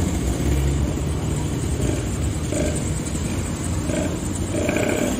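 Several small two-stroke moped and motorcycle engines running together at close range, a loud, steady, rumbling mix.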